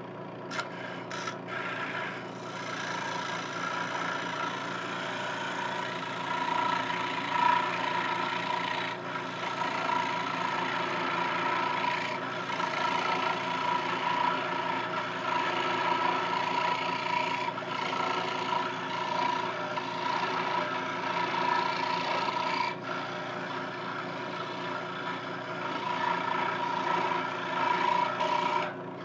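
Scroll saw running, its fine reciprocating blade cutting through wood with a steady pitched motor hum under a rasping cut. It is making a slow relief cut for the wide blade inside a mortise, eased forward and back a little at a time.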